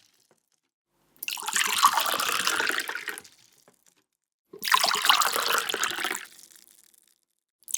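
Water filling a glass, in two separate pours of about two seconds each, with silence between. Each pour ends in a short trickle.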